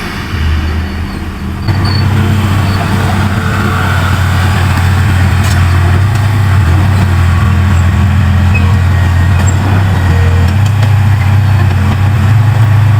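Heavy earthmoving machine's diesel engine running under power with a loud, steady low drone. It runs louder and a little higher about two seconds in, then holds steady.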